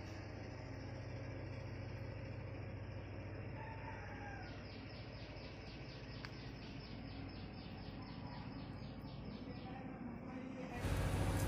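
A rooster crowing faintly over a steady low hum and hiss, with a faint, fast, even high-pitched pulsing through the middle stretch. Near the end a much louder steady low rumble cuts in.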